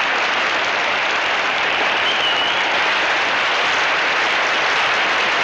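Canned crowd applause from an applause machine: steady, dense clapping that holds at one even level throughout.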